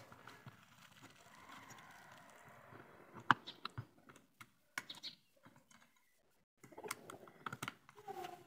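Faint, scattered clicks and taps of hands and a tool working wire onto the brass screw terminals of a plastic switch-and-socket extension board, with one sharper click a little over three seconds in.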